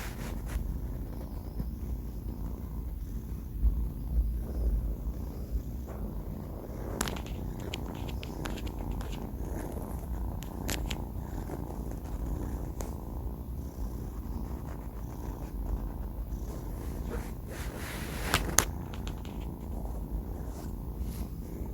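Sleeping four-month-old kitten snoring: a low, steady rumble, with a few short clicks scattered through it, the loudest near the end.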